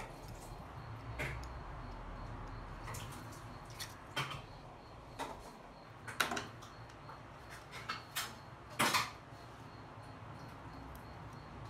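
Scattered light clicks and knocks of small hand tools and a circuit board being handled on a tabletop, such as flush-cutting pliers picked up and set down. There are about eight separate knocks, the loudest a little past halfway and again about three-quarters of the way through.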